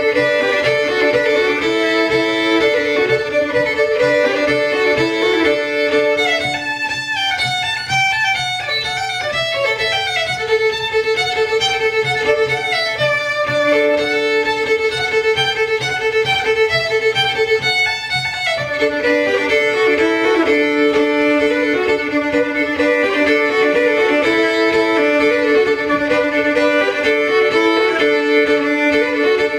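Old-time fiddle tune, often sounding two strings at once. From about 7 to 18 seconds in, the melody moves up to a higher part, then drops back to the lower one.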